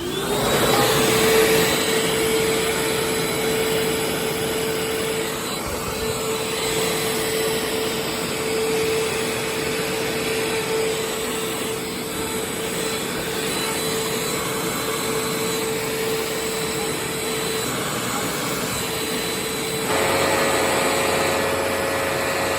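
Hoover Rewind Plus Multi-Stage Cyclonic upright vacuum cleaner switched on: its motor spins up within a second to a steady whine over a loud rush of air. About twenty seconds in, the tone shifts and a second, slightly higher hum joins it.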